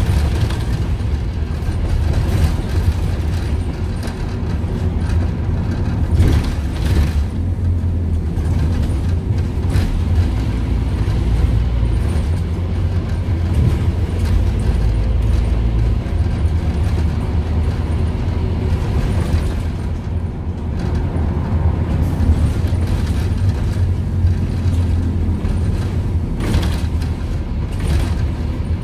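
Scania N230UD OmniCity bus heard from inside on the move: the Scania DC9 five-cylinder diesel drones low and steady, with occasional knocks and rattles from the body and fittings.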